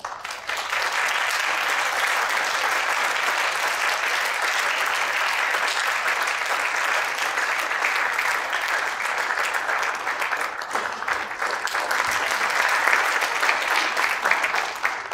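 Concert audience applauding steadily, the clapping swelling slightly near the end before dying away.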